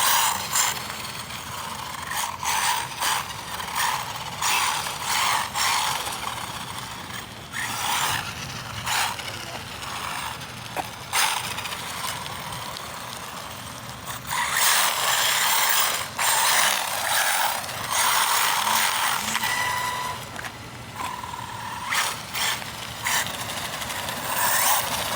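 Arrma Typhon RC car's electric motor and drivetrain whining in repeated surges as it speeds up and slides on tape-wrapped tyres.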